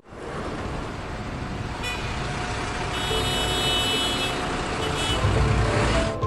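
Steady road-traffic noise that cuts in abruptly, with a horn-like toot held from about three to four seconds in.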